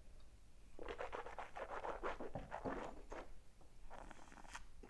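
A person slurping air through a mouthful of red wine to aerate it while tasting: a crackly, hissing slurp that runs for about two and a half seconds. A few light clicks follow near the end.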